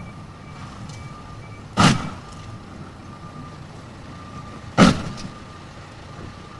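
Two heavy crashes about three seconds apart as a car sliding on snow slams into parked cars, over a steady low rumble. A faint short beep repeats on and off throughout.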